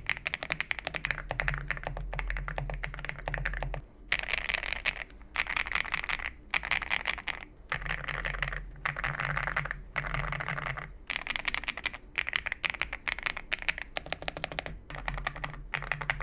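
Fast typing on a mechanical keyboard fitted with ceramic keycaps: a dense, steady stream of crisp, clacky keystrokes, broken by a few short pauses.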